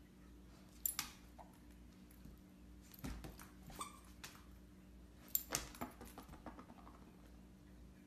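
A Doberman and a Bernese mountain dog puppy playing: faint scattered clicks and jingles, one about a second in, then two clusters around three seconds and around five and a half seconds in.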